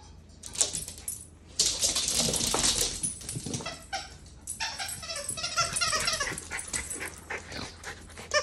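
A small dog, the Cairn terrier, whining in short, wavering high cries from about halfway through, after a couple of seconds of rustling.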